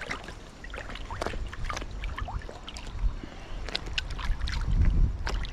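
Shallow sea water lapping and splashing in small irregular slaps close by, over a low wind rumble that swells about five seconds in.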